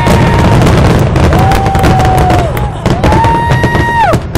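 Fireworks crackling over a steady low noise, with three long, high held cheers from spectators, the last one breaking off near the end.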